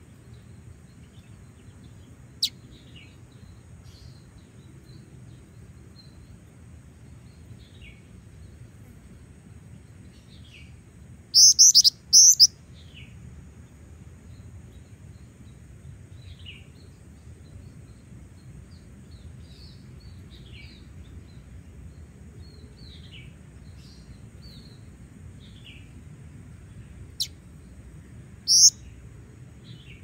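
Female black-winged flycatcher-shrike calling: short, high, falling chirps every second or two, with a loud burst of three or four sharp chirps about eleven seconds in and another loud chirp near the end.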